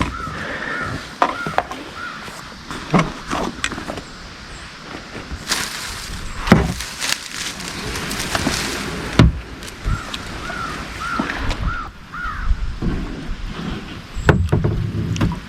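American crows cawing in short series of calls, near the start and again about two-thirds of the way through, over scattered knocks and a stretch of rustling noise in the middle.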